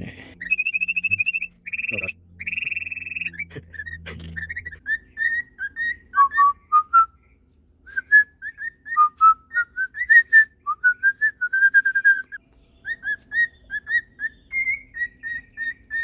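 Male cockatiels whistling their courtship song to a female: a few longer, steady whistled notes, then a long run of short rising and falling whistled notes with brief pauses.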